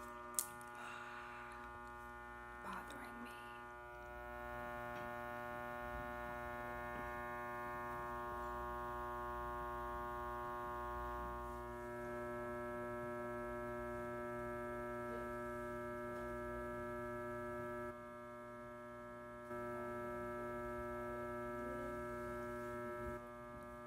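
Fluorescent ceiling lights giving off a steady electrical buzz, a mains hum with many steady overtones. It grows louder about four seconds in and dips briefly near the end before coming back. A single click sounds just after the start.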